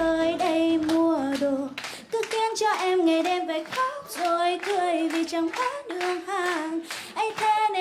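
A woman singing a slow, wavering melody into a microphone over the PA, the backing music fading out so she sings nearly unaccompanied. Scattered handclaps sound along with her.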